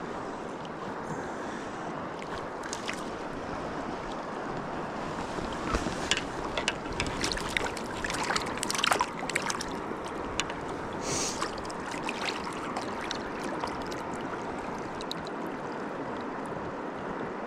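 River water rushing steadily, with a cluster of short sharp clicks and splashes in the middle.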